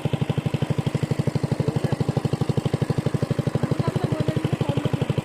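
A small engine running steadily at an even pulse of about twelve beats a second.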